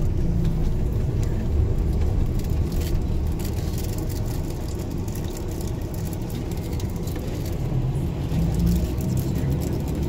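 Steady low engine and road rumble inside a moving tour bus, with scattered faint ticks.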